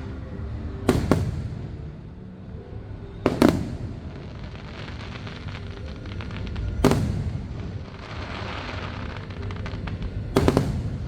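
Fireworks going off: four loud bangs about three seconds apart, some in quick pairs, with crackling between them.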